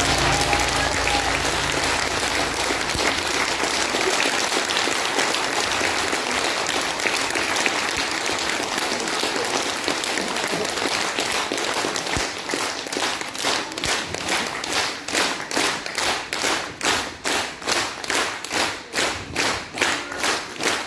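Audience applauding after a performance, with the last low notes of the music dying away in the first few seconds. About twelve seconds in, the applause settles into rhythmic clapping in unison, about two claps a second.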